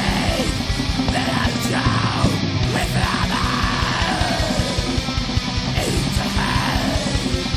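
Heavy metal band recording: fast, even kick-drum beats under a dense wall of instruments, with yelled vocals sliding in pitch.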